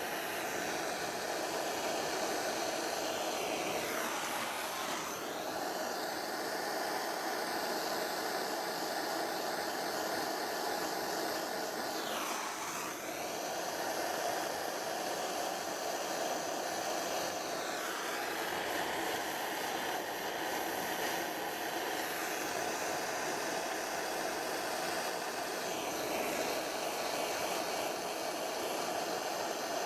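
Gas blow lamp (blowtorch) flame running steadily while heating a silver-soldered joint. Its tone dips and comes back four times as the flame is moved over the work.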